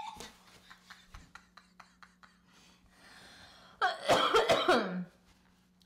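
A woman coughs hard into a napkin, a loud fit of about a second some four seconds in. Before it come light clicks of a knife slicing a pickle on a cutting board.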